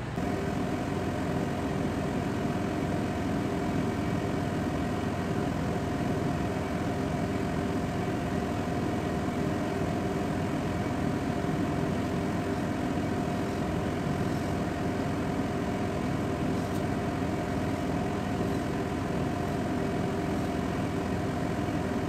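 Steady hum of a ship's engines and machinery: an even rumble with a couple of steady tones running through it.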